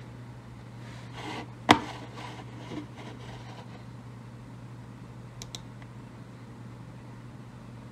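A short rustle, then one sharp click about two seconds in, over a steady low hum. A small knock follows, and a quick pair of faint ticks comes about halfway through: handling and clicking at a laptop.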